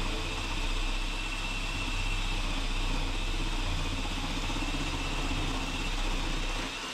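Cordless drill running steadily as it bores into pine ceiling boards, with a steady high motor whine.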